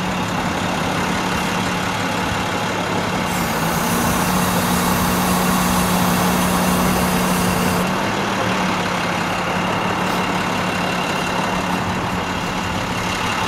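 Work truck's engine idling steadily. For about four seconds partway through it runs louder, with a hiss over the hum, then settles back.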